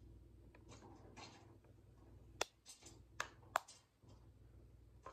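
Small clicks from a 360 camera on a selfie stick being handled and adjusted: faint rustling, then three sharp clicks in the second half, the last the loudest.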